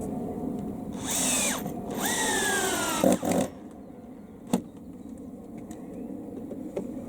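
Cordless drill run in two short bursts, each with a whine that falls in pitch as the motor winds down, followed by a couple of knocks and a sharp click.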